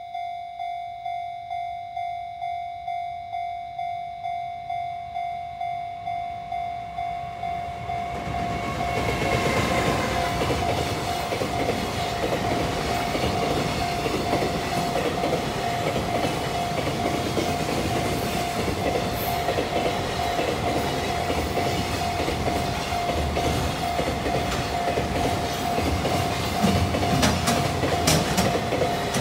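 Sound of a real freight train: a level-crossing bell rings in a steady beat of about two strokes a second, then about eight seconds in a container freight train arrives and runs past with a rumble of wheels and clickety-clack over rail joints while the bell keeps ringing.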